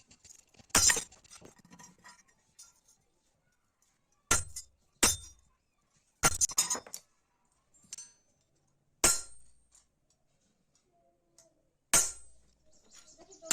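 Metal objects knocking and clinking, about seven separate hard clinks at irregular intervals, a few of them with a dull thud beneath.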